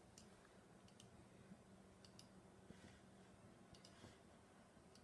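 Near silence with a few faint clicks from working a computer, several of them in quick pairs, as a list is copied and pasted.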